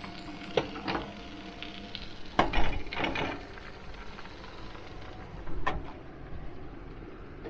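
Fish frying in a pan with a steady sizzle, broken by occasional knocks and clinks of a utensil, loudest about two and a half to three seconds in.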